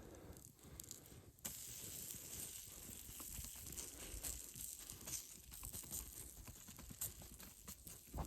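Yeast-dough flatbread cooking in a pan: a steady sizzle starts suddenly about a second and a half in, with small crackles and clicks through it.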